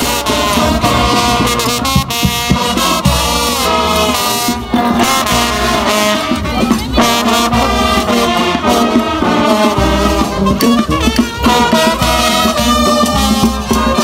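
Marching brass band playing a tune, with trombones and other brass horns carrying the melody.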